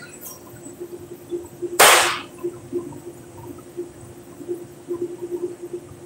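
A single sharp burst of noise about two seconds in, lasting about half a second, over a steady low hum that pulses faintly.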